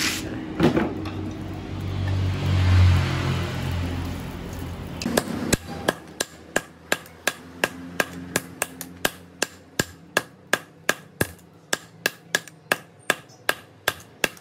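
A low rumbling noise swells and fades over the first few seconds. Then, about five seconds in, a steady run of hammer blows on steel begins, about three a second, each with a short metallic ring: hand-forging a knife from aircraft landing-gear steel.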